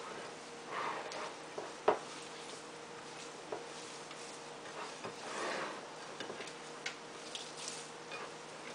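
Hands mixing and kneading semolina-and-flour dough in a glass baking dish: soft squishing and rubbing, with a few light knocks against the glass, the sharpest about two seconds in. A faint steady hum sits underneath.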